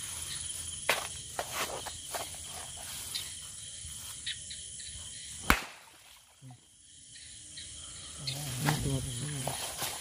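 Night insects, crickets among them, trilling steadily, with scattered rustles and knocks as people move through vegetation by a marsh. One sharp, loud knock comes about five and a half seconds in, and a brief low hum near the end.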